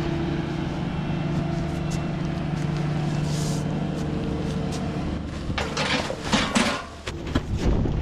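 A farm loader's engine running steadily. About five and a half seconds in it fades, and a run of knocks and crackling follows as tires are handled on the plastic silage cover.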